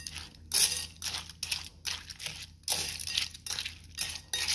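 Dry kibble and wet dog food being stirred together in a glass bowl: repeated wet scraping and crunching strokes, roughly two a second, with the kibble rattling against the glass.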